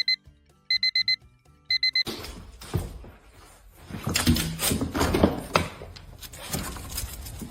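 Electronic alarm beeping in quick groups of four short high beeps, about one group a second, stopping about two seconds in. Then rustling and a series of knocks and thumps.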